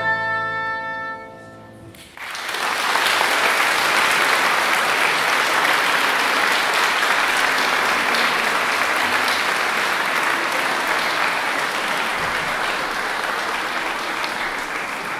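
Oboe and piano hold a final note that dies away in the first two seconds, then an audience's applause starts and carries on steadily.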